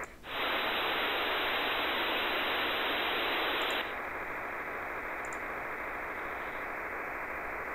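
Static hiss from a HackRF software-defined radio receiver's audio output. After a brief dropout it turns louder and brighter for about three and a half seconds, then falls back to a duller, steady hiss.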